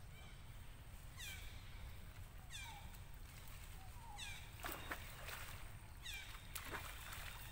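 Short high animal calls, each falling quickly in pitch, repeated about every second and a half. A few short sharp sounds come a little past the middle.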